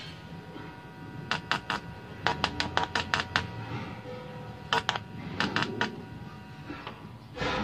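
Sharp clicks and crackles in irregular bursts, one a quick run of several, as a 3.5 mm audio jack plug and its cable are handled at a small amplifier's input. A steady low hum runs underneath.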